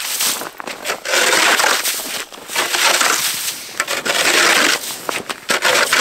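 A long-handled snow shovel scraping and scooping wet slush and snow off the ice around ice-fishing holes, in several long scrapes of about a second each.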